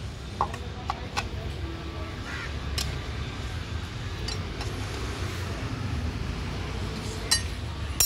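A few short, sharp metallic clinks from a long steel tool working on a motorcycle's gear-shift linkage bolt, over a steady low rumble.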